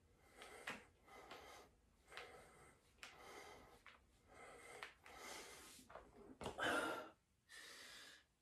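A man's heavy breathing from exertion, puffing in and out roughly once a second during an ab exercise, with a louder gasp near the end.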